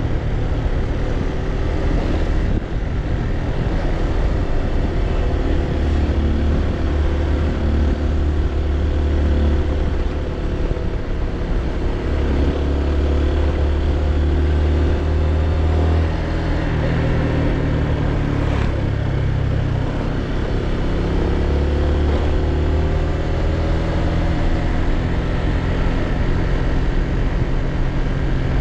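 Motor scooter engine running while being ridden, its pitch slowly rising and falling with the throttle over a steady low rumble.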